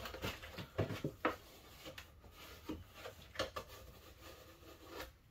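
Scattered light knocks, clicks and rubbing from a plastic jug and a paint roller being handled while the roller is cleaned of oil-based polyurethane, with several sharper knocks in the first second and a half.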